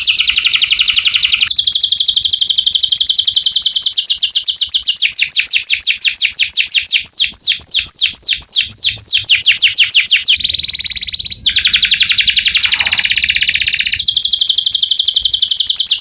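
Male canary singing: fast trills of quickly repeated, high falling notes that switch to a new phrase every few seconds, with a brief break about eleven seconds in.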